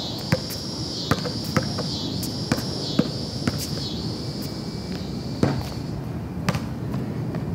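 Basketball bounced on a concrete slab: a dribble of sharp bounces about every half second, then a pause and two more thumps about a second apart. A steady high buzz rises and falls in the background about once a second and fades after about four seconds.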